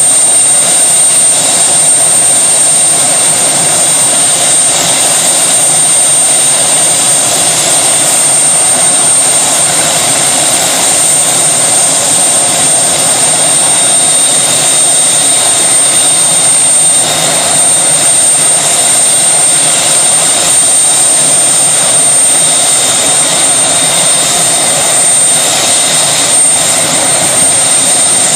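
Helicopter running steadily, a constant loud noise with a thin high-pitched whine over it.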